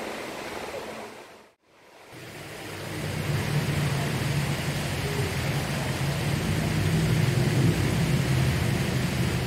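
Fountain water splashing, cut off about one and a half seconds in. Then street traffic, with a vehicle engine running close by as a steady low hum that grows louder.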